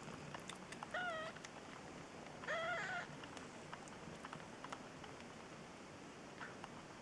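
Eight-day-old kittens mewing while nursing: a short high mew about a second in and a longer one around three seconds, then a faint one near the end, with faint small clicks between.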